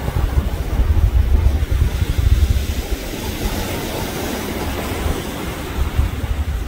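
Low, crackling rumble of the Falcon 9 rocket's first-stage engines arriving from far off, over wind on the microphone and surf. The rumble is heaviest for the first few seconds, then eases.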